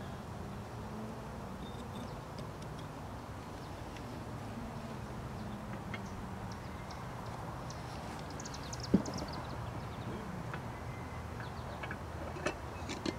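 A few sharp metal clinks of engine parts and tools being handled over a disassembled engine, against a steady low hum. The sharpest clink comes about nine seconds in, with two more near the end.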